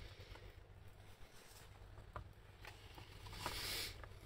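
Faint handling sounds from a motorcycle twin carburetor bank: a few small clicks and taps, then a louder rustling scrape about three and a half seconds in as the carburetors are turned over on cardboard.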